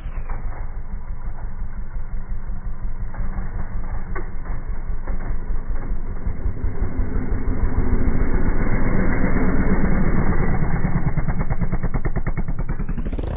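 Small single-cylinder four-stroke pit bike engines, Honda CRF110 and Kawasaki KLX110, revving as the bikes ride a dirt track. They sound muffled, grow louder about eight seconds in, and break into a rapid even pulse near the end.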